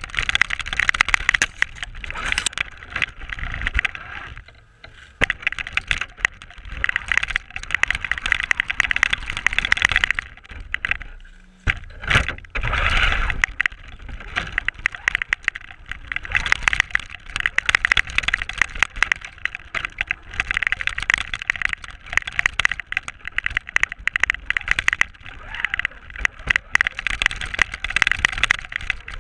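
Onboard sound of a Traxxas RC car driving over snow: the motor and drivetrain whir while the tyres churn snow, picked up close by the mounted camera. The sound dips briefly about five seconds in and again around eleven seconds, followed by a heavy low thump as it picks back up.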